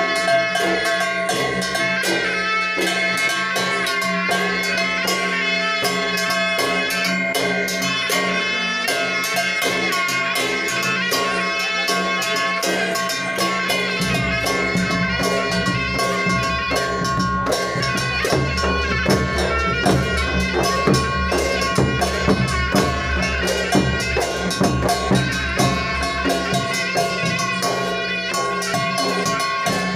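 Fast festival drumming on large barrel drums, with steady held tones sounding above the beat. About halfway through, a deeper, heavier drum beat joins in.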